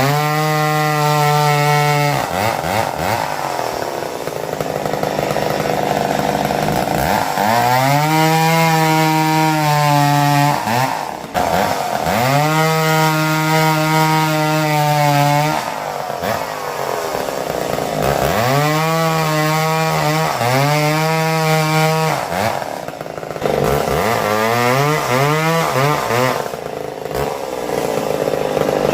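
Vintage McCulloch 7-10 Automatic two-stroke chainsaw cutting through small logs. The engine pitch drops to a lower, steady note about five times as the chain bites into the wood, then climbs back between cuts.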